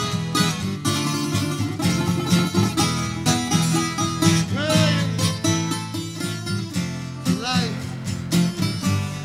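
Background music in a bluegrass style, played on plucked acoustic string instruments led by guitar, with a couple of sliding notes about five and seven and a half seconds in.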